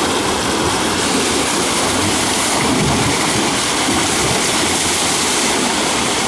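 Water pouring over a fish-ladder weir and churning in the pool below: a steady, loud rush.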